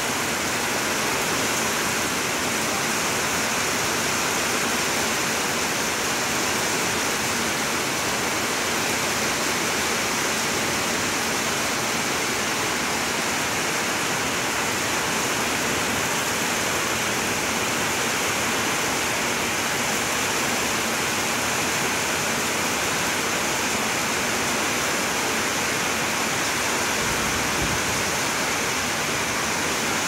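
Heavy rain falling steadily on trees and broad-leaved plants, a constant even hiss with no breaks.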